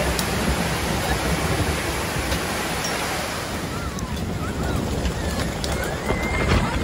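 Steady rushing noise of a waterfall. A few seconds in it gives way to wind buffeting and churning water, heard from a boat near the base of a large waterfall, with a few short high gliding calls over it.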